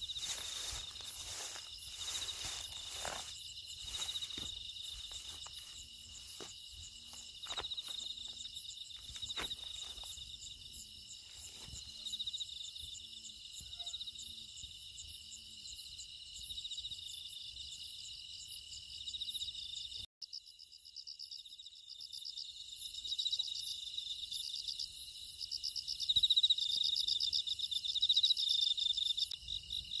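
Night chorus of crickets and other insects, a steady high pulsing trill, with footsteps rustling through dry grass and reeds over the first dozen seconds. About two-thirds of the way through, the sound breaks off briefly and the chorus returns louder and more strongly pulsed.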